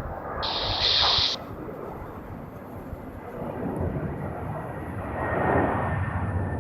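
Jet airliner engine noise: a steady rumble that swells about five and a half seconds in. A brief, loud high hiss cuts in and out about half a second in.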